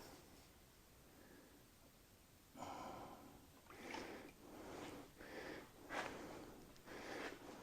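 A fresh weld on a steel part being scrubbed by hand to clean off the slag: six or seven quick scraping strokes, starting about two and a half seconds in.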